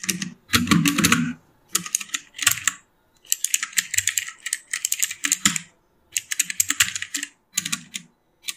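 Typing on a MeeTion MK005 60% mechanical keyboard with Outemu Blue switches: bursts of rapid clicks, with brief pauses between them.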